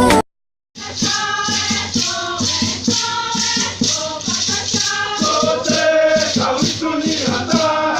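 Intro music with singing and a steady shaker rhythm, starting after a brief silence.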